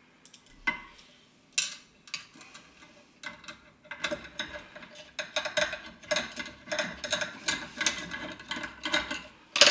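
Screwdriver turning a small M4 countersunk machine screw into a metal front panel: two isolated clicks, then from about four seconds in a steady run of light clicks and scrapes, a few a second, ending in one sharp click near the end.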